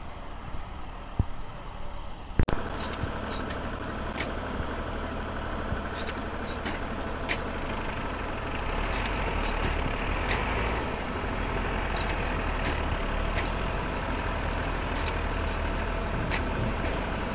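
Diesel tractor engine running steadily while its front loader works a load of wet clay, the drone growing a little deeper and louder from about nine seconds in. A single sharp knock about two and a half seconds in, with scattered light ticks throughout.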